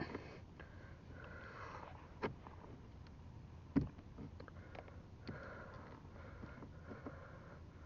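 A person's soft breathing and sniffing close by, with small clicks of a knife tip working at the plastic mirror adjustment knob. The sharpest click comes nearly four seconds in.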